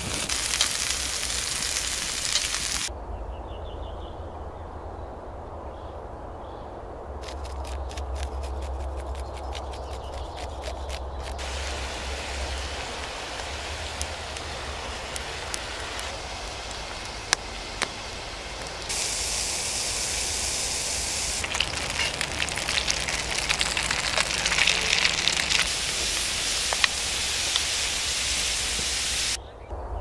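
Open wood fire crackling and hissing under food cooking over it, first steaks on a grill grate, then fish in a cast-iron pot, in short clips that change abruptly every few seconds. About a third of the way in there is a run of quick crackles.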